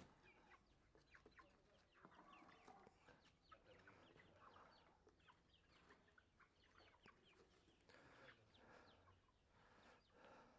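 Faint clucking of chickens, in scattered short calls.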